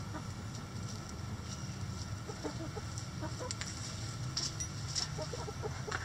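Backyard hens clucking while they forage, short low clucks scattered through, bunched about two seconds in and again near the end.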